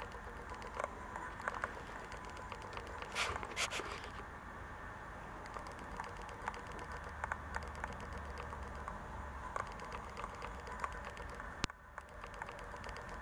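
A hand rubbing and scratching a Rottweiler's fur and ear flap close to the microphone: soft scattered scratching with small clicks, a few sharper clicks about three seconds in and one near the end.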